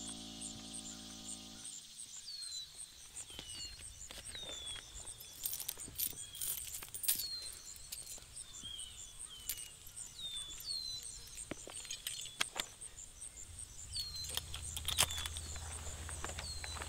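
Background music cuts off about two seconds in, leaving woodland ambience: a bird repeating short falling chirps over a steady high insect pulse, with footsteps crunching through leaf litter and scattered twig snaps and clicks. A low hum comes in near the end.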